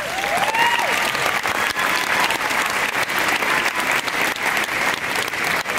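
Audience applauding, with a few rising-and-falling whoops in the first second.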